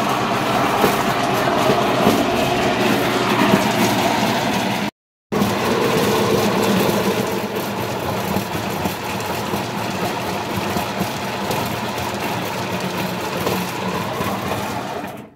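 Açaí pulping machine running steadily as it grinds açaí berries into pulp: a constant motor hum with a rattling clatter. It cuts out for a moment about five seconds in.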